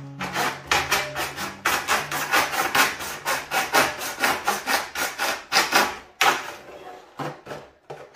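Hand saw cutting the plastic frame of a Ferplast Swing dog door, a fast run of back-and-forth strokes, several a second, that stops about six seconds in, followed by a few scattered knocks.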